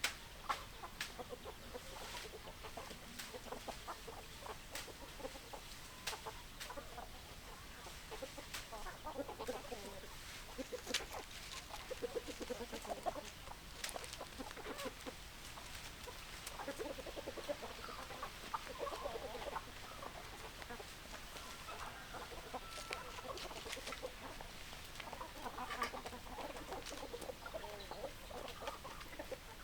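Hens clucking on and off in short broken calls, with sharp clicks scattered among them.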